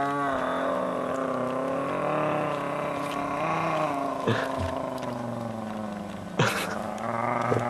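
A person holding one long droning note with the voice, its pitch wavering slowly, until it breaks off near the end.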